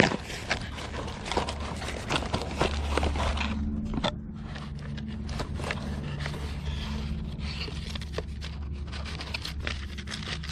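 Packaging being handled and scraped as a boxed running board is unpacked: a busy run of crackles, scrapes and knocks for about four seconds, then quieter scattered rustling and clicks over a steady low hum.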